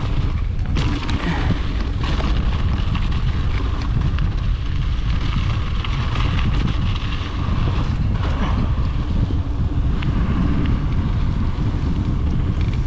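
Wind rushing and buffeting on the microphone of a mountain bike riding along a trail, with scattered clicks and rattles.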